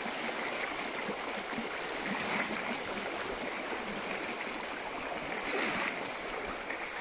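River water running steadily over stones, a continuous rushing hiss, with a brief louder swell about five and a half seconds in.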